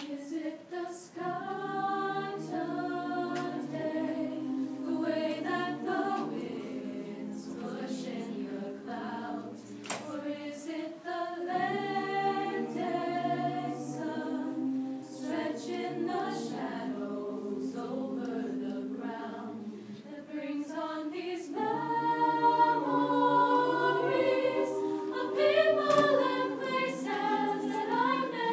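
Mixed choir of female and male voices singing a cappella in harmony, growing louder about three-quarters of the way through.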